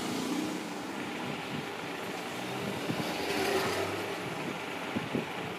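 Steady background noise with a low hum, swelling for about a second halfway through, with a few faint clicks.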